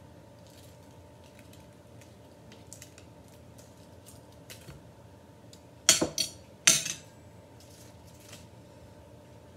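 Metal fork scraping and tapping on a ceramic plate while a dry banana-leaf wrapper is peeled off, with faint crackles and clicks throughout. Two louder clatters of fork on plate come about six and seven seconds in.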